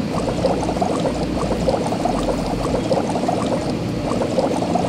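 Cartoon car-wash sound effect of bubbling, foamy water: a dense run of small pops at a steady level while the spinning wash brush scrubs the truck.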